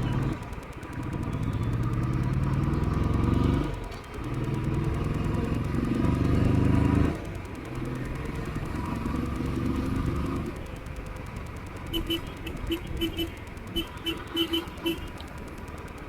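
Royal Enfield motorcycle engine pulling up through the gears, its pitch rising and then dropping at two gear changes before settling to a steady cruise. Near the end a horn sounds in two runs of short beeps.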